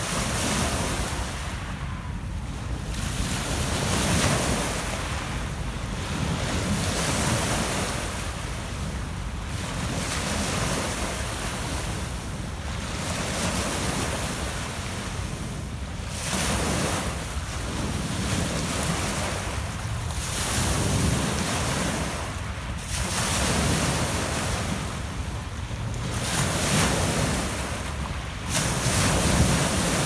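Small Lake Ontario waves breaking and washing up a pebble-and-cobble shore, a surge every two to three seconds over a continuous wash.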